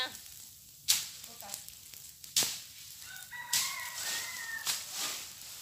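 A rooster crowing once, one long held call starting a little past three seconds in. A few sharp cracks come from the burning brush, about a second apart.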